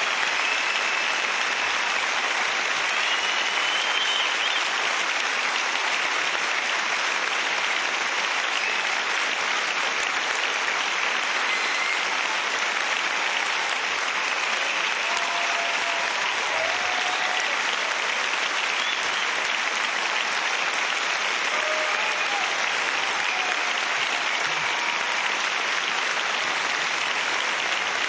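A large audience applauding steadily and without a break, with a few voices calling out here and there.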